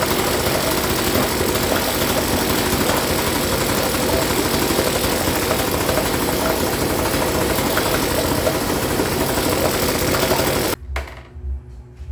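Hangkai 3.5 hp outboard motor running steadily on a test run. The sound cuts off suddenly near the end, leaving faint low thuds.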